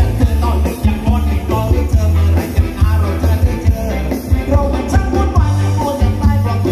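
Live band playing loud Thai ramwong dance music, with a singer over a strong, pulsing bass.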